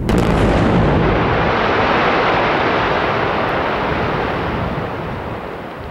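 Quarry blast: explosive charges detonating in the rock face with a sudden sharp crack, followed by a long rumble that slowly fades over several seconds.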